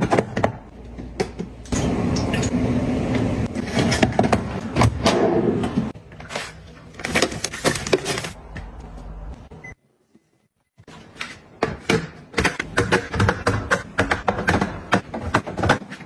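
Refrigerator compartments being handled: plastic drawers and bins sliding, clicking and knocking, and packets and bottles being set in place. A steadier rustling stretch comes early, and the sound cuts out for about a second some ten seconds in.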